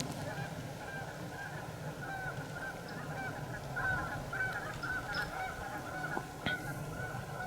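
A flock of geese honking: many short, overlapping calls repeating without a break.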